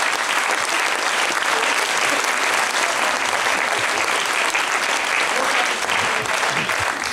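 Theatre audience applauding: many hands clapping in a dense, steady patter.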